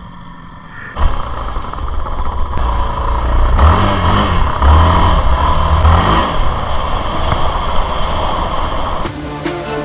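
A Yamaha Raptor 700R sport quad's engine starts loud suddenly about a second in and revs up and down repeatedly while riding a dirt trail, with rushing noise over the engine. Background music comes in near the end.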